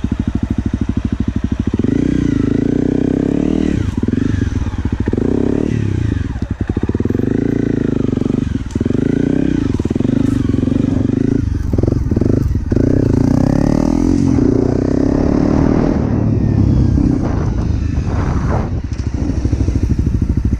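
Honda CRF250L dirt bike's single-cylinder four-stroke engine running under way, its pitch rising and falling as the throttle is opened and closed.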